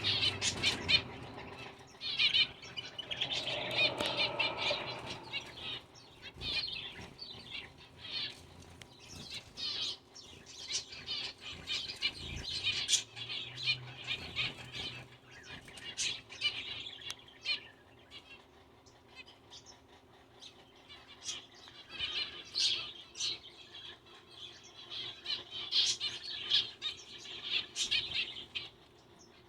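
Zebra finch chirping and singing: a stream of short, high, buzzy notes and calls. It comes in busy bouts near the start and again well past the middle, with scattered calls between.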